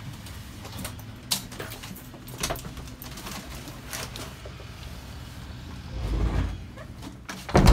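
Front door being unlocked and opened: scattered clicks and rattles of keys and the lock. A loud thump comes near the end.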